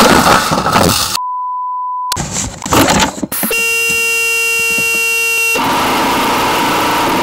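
Glitter bomb's fart spray canister hissing, then a steady one-second censor bleep that blanks the sound. After a steady electronic chord of tones for about two seconds, the bomb blasts out its glitter with a loud hiss near the end.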